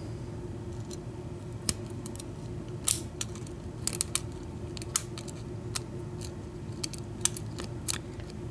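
Pick and tension tool working in a padlock's pin-tumbler cylinder: irregular, sharp metallic clicks as the pins are lifted and set, over a steady low hum.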